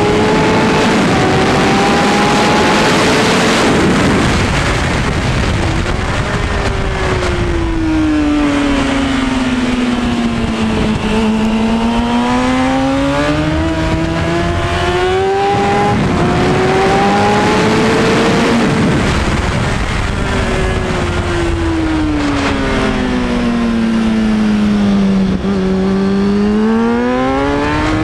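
2003 Kawasaki Ninja ZX-6R 636's inline-four engine at racing revs, heard onboard over heavy wind rush. Its pitch climbs through upshifts, then twice falls slowly while slowing for a corner and rises again on the way out.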